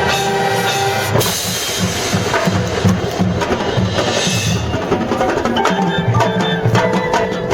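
High school marching band playing its field show. A loud full-band hit lands about a second in, then the drums and percussion lead, and held horn notes come back near the end.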